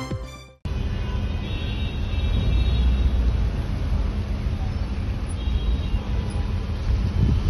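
Theme music fades out and stops about half a second in, then a steady low rumble of road traffic and vehicle engines, with faint voices.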